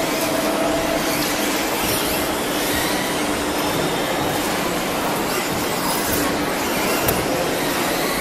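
Electric 2WD off-road RC buggies racing in a large hall: a steady, dense noise of motors and tyres on the track, with high motor whines rising and falling as the cars speed up and slow down, and one sharp knock about seven seconds in.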